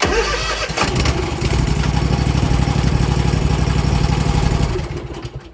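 Scag Liberty Z zero-turn mower's engine cranking and catching, then running steadily, a sign that the newly replaced ignition switch works. The engine sound dies away during the last second.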